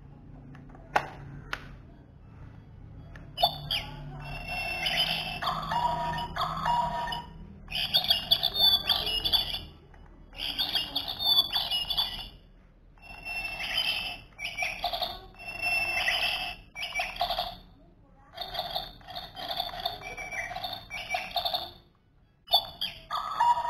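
Battery-powered toy caged bird playing electronic birdsong through its small speaker: warbling chirps and trills in repeated bursts of a couple of seconds with short pauses between. Two sharp clicks about a second in, before the chirping starts.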